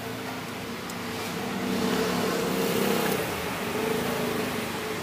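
A motor vehicle's engine passing close by, its hum swelling about two seconds in and easing off near the end.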